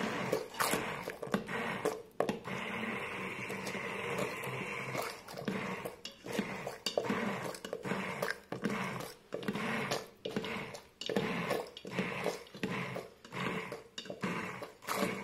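Immersion blender on its lowest speed puréeing butternut squash soup in a stainless steel Instant Pot inner pot. It runs steadily for a few seconds, then rises and falls in quick regular pulses as it works through the soup.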